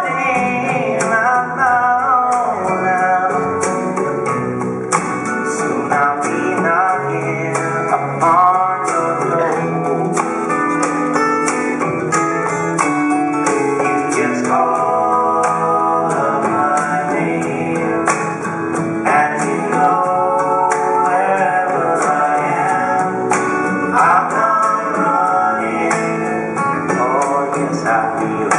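Recorded song with a singing voice over instruments and a steady beat, played as accompaniment to a ballet dance.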